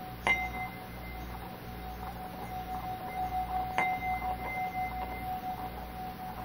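Small hand-held singing bowl struck twice with a mallet, about three and a half seconds apart. Each strike leaves a long steady ringing tone with a fainter higher overtone, which wavers in loudness after the second strike as the mallet works the rim.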